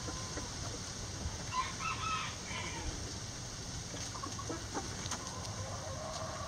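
Chickens clucking in a coop, with one louder, higher call broken into several short pieces about a second and a half in.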